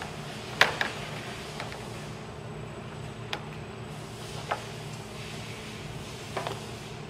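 A moulded plastic part knocking against a metal assembly fixture, and toggle clamps being snapped shut. This gives about five sharp clicks and clacks at uneven intervals, the loudest about half a second in, over a steady low machine hum.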